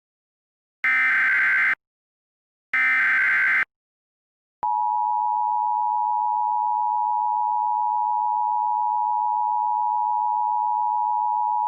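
Emergency Alert System tones: the last two bursts of the SAME header data, each about a second long and a second apart, then, after about a second's pause, the EAS attention signal, a steady two-tone alarm (853 and 960 Hz) that starts about four and a half seconds in and holds.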